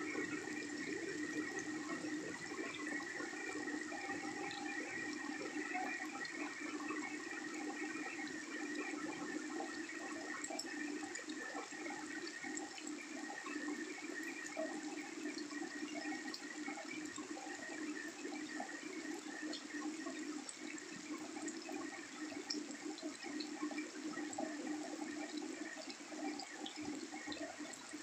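Heavy rain falling into shallow standing water on pavement: a steady, dense splashing hiss made of countless small drop impacts.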